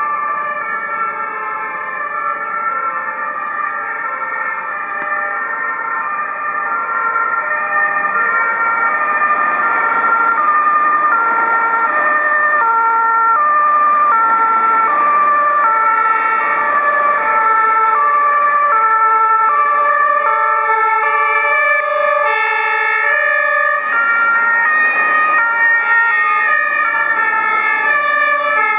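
Two-tone sirens of German fire engines, more than one sounding at once out of step, their alternating high-low notes growing louder as the engines approach. A short hiss comes about two-thirds of the way through.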